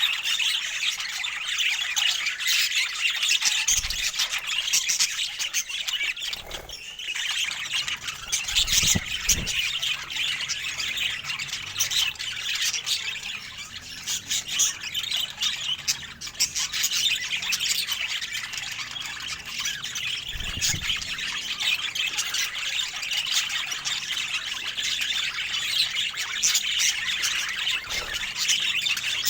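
Budgerigars chattering and chirping continuously, a dense run of short squawks and tweets, with a few brief low bumps.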